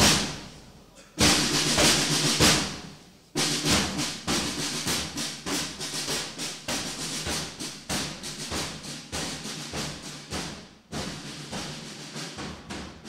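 A school drum corps playing marching snare drums: two loud rolls that swell and die away, then a fast marching beat from about three seconds in that slowly grows quieter.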